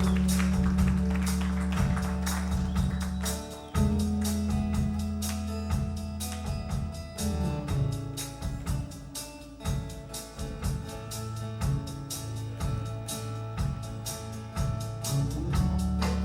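Live band playing an instrumental passage: guitars strumming and picking over held bass notes, with no singing.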